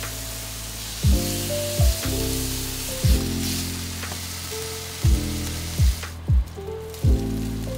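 Slices of lamb sizzling in a hot frying pan, with background music over it: a deep kick drum hitting about once a second and sustained chords. The sizzle drops out briefly about six seconds in.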